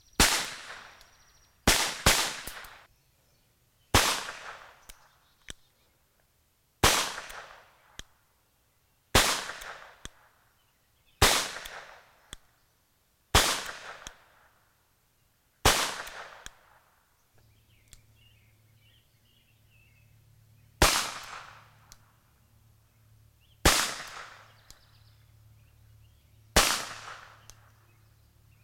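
Webley & Scott Mark IV revolver firing .38 S&W: about a dozen single shots, two to three seconds apart, with a pause of about five seconds past the middle. Each shot trails off in a short echo.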